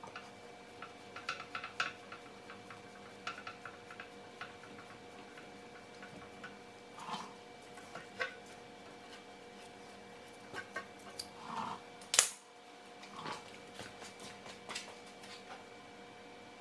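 Scattered light metallic clinks and clicks of a clamp and hand tools being handled at a car's rear brake caliper, with one sharper click about 12 seconds in.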